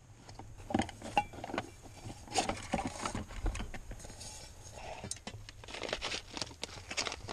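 Irregular clinks and knocks of camping cookware, jars and bottles being rummaged through in a wooden drawer, as a small cook pot is lifted out and a rice pouch handled.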